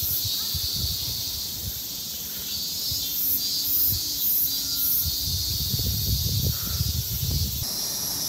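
Insects trilling in a steady high-pitched chorus that pulses at times, with a low, uneven rumble underneath.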